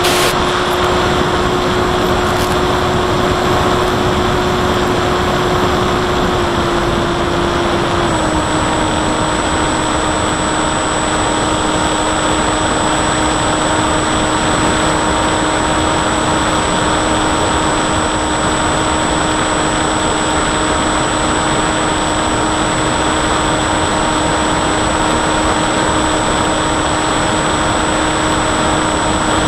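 Bixler 1.1 RC plane's electric motor and pusher propeller running steadily, heard from the plane's onboard camera through loud wind rush. Its whine holds one pitch, then steps slightly lower about 8 seconds in as the throttle eases.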